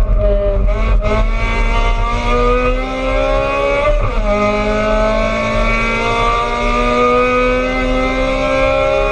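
A 1600 cc class race car's engine, heard from inside the stripped cabin, accelerating hard with its pitch climbing steadily. A quick upshift about four seconds in drops the pitch, and it then climbs again.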